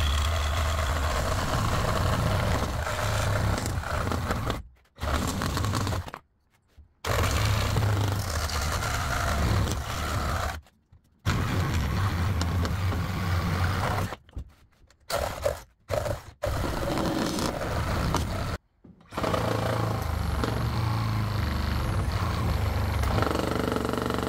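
Mastercraft cordless reciprocating saw running flat out, its blade sawing through dense hardwood pallet boards. It cuts off abruptly several times and starts again.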